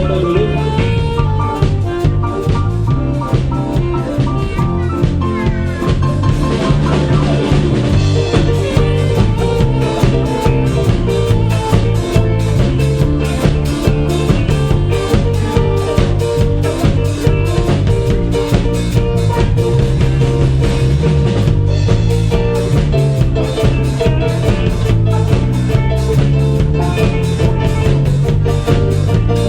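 Live band playing an instrumental tune: drum kit keeping a steady beat under guitar and sustained keyboard notes.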